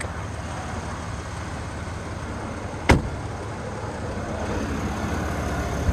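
Truck engine running with a steady low hum, and one sharp click about three seconds in.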